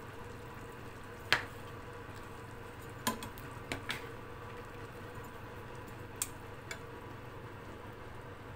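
A spoon stirring a meat-and-vegetable stew in a pot, knocking against the pot in several sharp clinks, the loudest about a second in, over a steady low hum.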